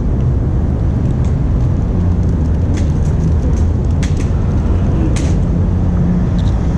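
Steady low mechanical hum of a running motor, with a few faint short clicks.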